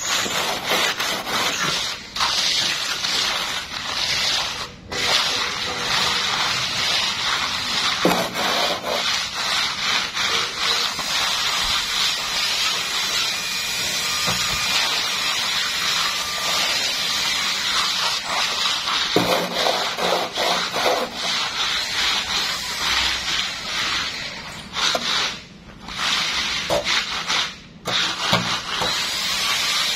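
A wooden straightedge and hand float scraping and rubbing across freshly poured wet concrete in repeated back-and-forth strokes as the surface is levelled, with a few brief pauses.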